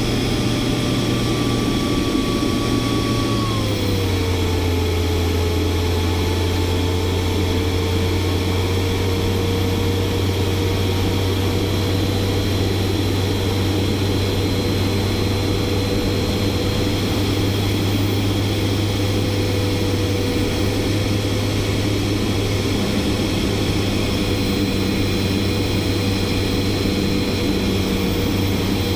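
Kingtech K45TP model turboprop and propeller running steadily in flight. Its pitch drops about four seconds in, then holds level.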